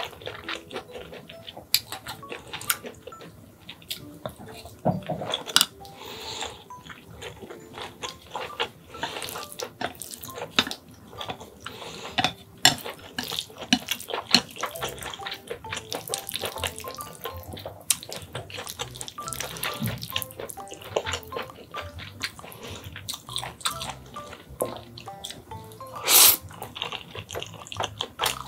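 Close-up eating sounds of cream-sauced rosé buldak noodles: wet chewing and smacking with small clicks of chopsticks against a plate, and a loud noodle slurp near the end. Faint background music plays underneath.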